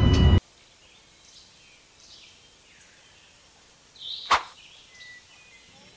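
A loud stretch of voice and music cuts off abruptly about half a second in. It leaves faint outdoor ambience with a few faint bird chirps, and one sharp click about four seconds in.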